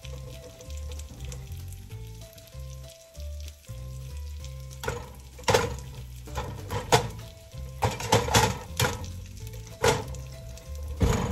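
Sausages frying in a pan, with a utensil scraping and knocking against the pan in a run of sharp strokes from about five seconds in, over background music with a bass line.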